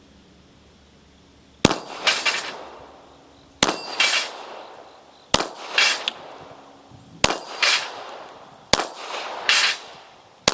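Bulgarian Makarov 9×18mm pistol firing five single shots about two seconds apart, each followed about half a second later by the clang of the bullet striking a steel plate. A sixth shot comes right at the end.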